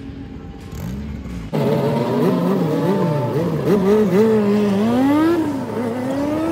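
Honda CRX drag car's engine. It runs low at first, then about a second and a half in turns suddenly louder and is revved in quick blips, the pitch swinging up and down over and over and climbing once more near the end, as the car is held at the starting line.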